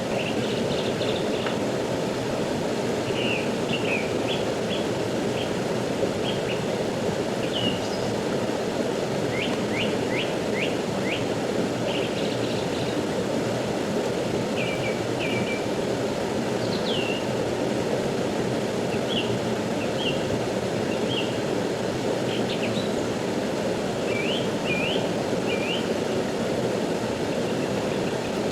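Steady rush of a fast-flowing river, with small birds chirping in short calls over it, including a quick run of four notes about ten seconds in.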